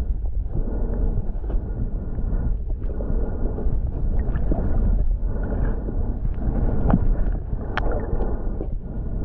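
Underwater sound from a submerged camera: a steady, muffled low rush of water with scattered faint clicks and gurgles.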